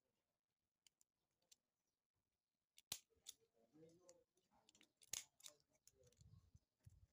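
Small handheld stapler snapping shut twice, about three and five seconds in, as it staples ribbon onto a folded banana-leaf piece, with a few fainter clicks and handling sounds between.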